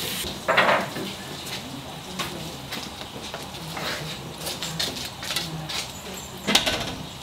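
Wood fire crackling in an open hearth, with meat sizzling on an iron gridiron above it: irregular sharp pops throughout. Twice, about half a second in and again near the end, a fork scrapes and clatters on the grate as the meat is turned.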